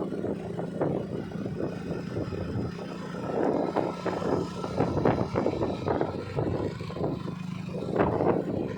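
A motor runs at a steady low hum, overlaid by irregular gusty rumbling that swells and fades several times.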